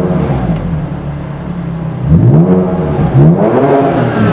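BMW Z4 engine breathing through a TRR full aftermarket exhaust with headers, free-revved in park. Its note falls away from a rev early on, then the throttle is blipped up twice in quick succession, and it climbs again near the end to about 5,500 rpm.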